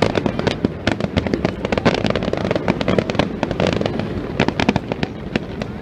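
Fireworks going off in quick succession: a dense, continuous crackle of many sharp pops and bangs with no break.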